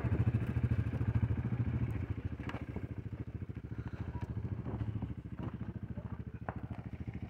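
ATV (four-wheeler) engine running with a rapid, even chug, growing quieter over the first few seconds and then holding steady, with a few faint ticks.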